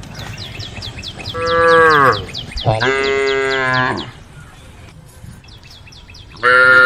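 Cows mooing: two loud moos a second or so long in the first half, with the pitch dropping at the end of each, and a third starting near the end. A rapid series of high chirps runs above them through the first half.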